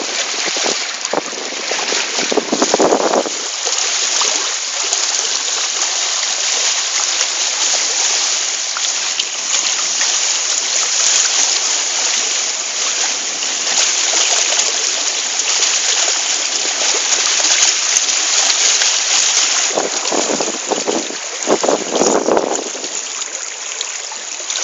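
Steady rush of wind and water aboard a Hobie Cat catamaran under sail, with heavier low rumbling gusts about a second in and again near the end.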